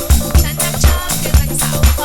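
Electronic disco-funk music with a steady four-on-the-floor kick drum about twice a second under a bass line and hi-hats.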